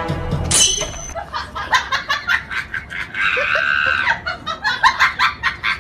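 Background music cuts off about half a second in, followed by a person laughing in short, rapid bursts. A longer high-pitched sound about halfway through stands out among the bursts.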